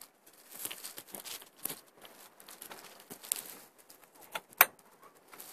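Rustling, crackling handling noise against the camera's microphone, with scattered clicks and one sharp knock about four and a half seconds in.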